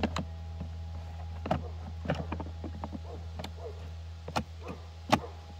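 Hard plastic clicks and knocks, about six spread over several seconds, as a battery pack is pushed into the battery compartment of a Stihl 235 cordless lawn mower, over a steady low hum.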